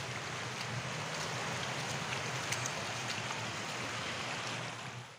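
Steady rushing of stream water pouring over rocks, an even hiss with no break.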